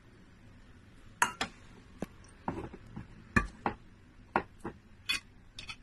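A metal spoon clinking against a stainless steel mixing bowl, about ten short, sharp, irregular clinks.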